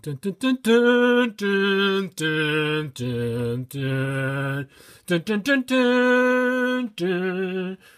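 A man singing a wordless tune unaccompanied, mostly in long held notes with a few quick short notes between them.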